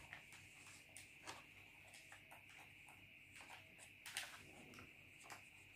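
Near silence with faint, scattered light taps and rustles of a sheet of paper being handled on a table. The loudest one comes about four seconds in, over a faint steady hiss.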